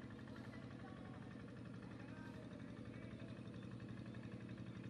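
A steady low motor drone, with a few faint short chirps over it.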